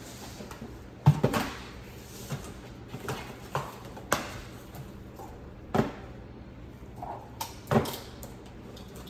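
A series of irregular knocks and clunks, about seven or eight over several seconds, the loudest about a second in.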